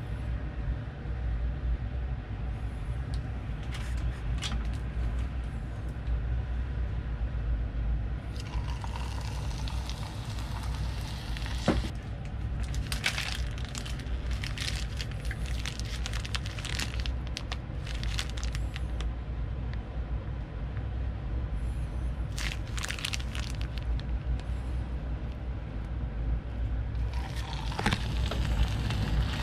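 Churro batter piped into hot oil in a cast-iron pot, starting to sizzle in the last couple of seconds over a steady low kitchen rumble. Before that, scattered bursts of crackling come and go.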